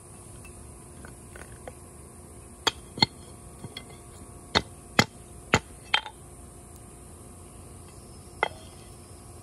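Ingot mold flipped with tongs and knocked against a flat stone to drop out a cast aluminum ingot: a string of sharp clacks, two about two and a half seconds in, four more in quick succession around five seconds, and a last one near the end.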